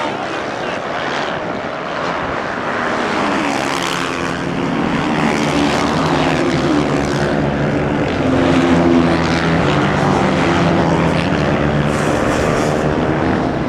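Several motocross dirt bikes racing on the track, their engines revving up and down and overlapping as they accelerate through the jumps and turns. The engine sound grows louder from about halfway through.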